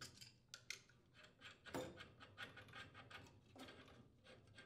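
Faint metal clicks and rubbing from pipe wrenches loosening a gas supply pipe union, then the union nut being turned by hand. The loudest click comes about two seconds in.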